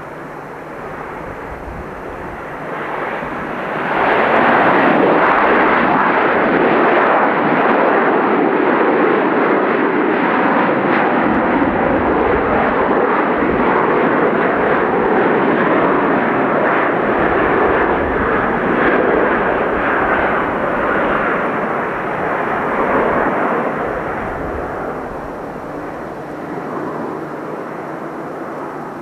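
Boeing 747's four jet engines in reverse thrust after touchdown: a loud, steady rushing noise that surges up about four seconds in, holds, and eases off over the last few seconds as the aircraft slows.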